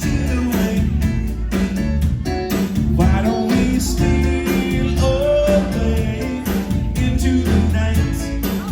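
Live yacht-rock band playing: a voice singing over guitar, with strong low notes and a steady beat.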